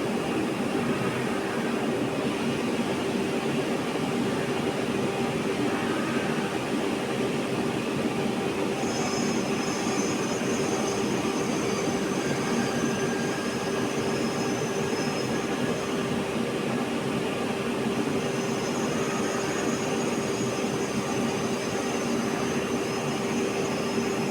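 CNC grinding machine running steadily, with a constant hum and a noisy grinding sound. A high whine comes in about nine seconds in, stops around sixteen seconds, and returns a couple of seconds later.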